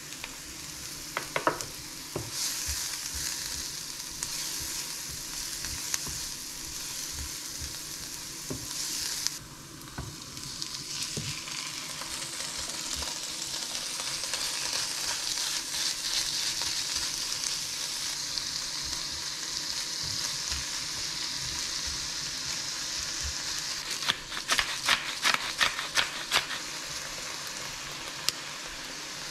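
Diced onion sizzling in a frying pan while a spatula stirs it, then ground beef frying with the onion. The sizzle drops briefly about nine seconds in and comes back stronger. Near the end there is a quick run of about ten sharp clicks.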